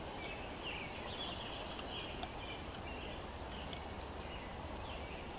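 A bird chirping over and over in short high calls against a steady outdoor background hiss, with two faint clicks, about two and nearly four seconds in.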